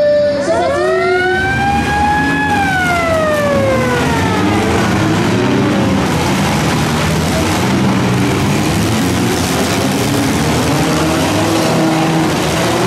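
A siren winds up for about two seconds and then slowly winds down, the signal that starts the demolition derby. Under it and after it, many four-cylinder derby car engines rev as the cars start ramming each other.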